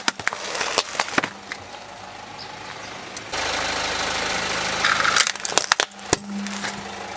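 Hard plastic toys cracking and snapping under a slowly rolling car tyre, in two clusters of sharp cracks: one at the start and another about five seconds in. Between them the car's engine idles with a steady hum.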